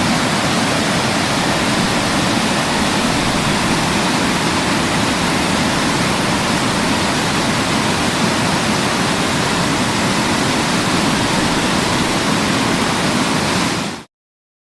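Waterfall rushing steadily, a dense even roar of falling water, cutting off suddenly near the end.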